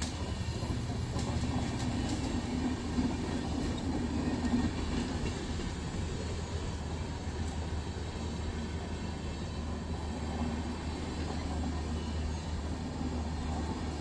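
Long passenger train's coaches rolling past at a steady pace, an even, continuous rumble of wheels on the rails.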